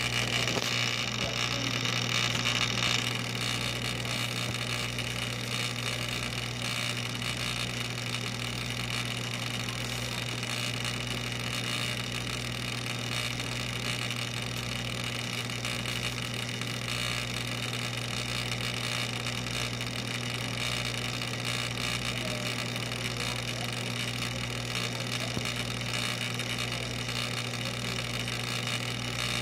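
Steady hum and hiss of saltwater aquarium pumps running, with a low throb pulsing a little under once a second underneath.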